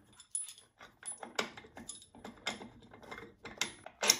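Steel bolt clinking and tapping against a steel bracket and tube as it is pushed through by hand: a string of light, irregular metallic clicks, some with a brief ring, and a sharper clank just before the end.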